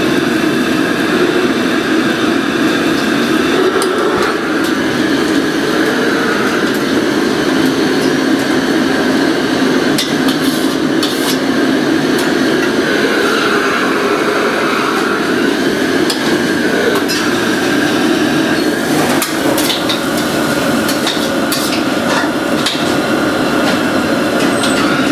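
Steady roar of a commercial kitchen's wok range, with metal ladles clanking against woks and bowls now and then, most often about ten seconds in and again past halfway.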